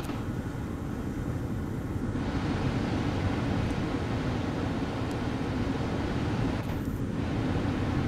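Steady low rumble of ocean surf breaking, heard from the shore, with wind noise on the microphone.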